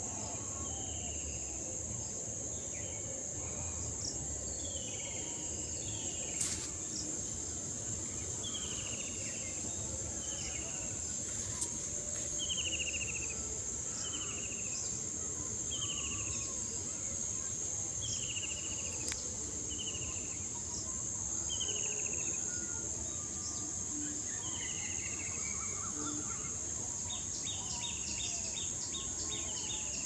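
Steady, high-pitched insect drone, with a bird repeating short falling chirps every second or two and a rapid ticking trill near the end, over a low, even background noise.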